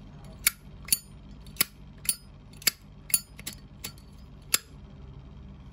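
About nine sharp metallic taps, roughly two a second, stopping about four and a half seconds in: a Zippo lighter's hinge pin being tapped back in because it has worked loose.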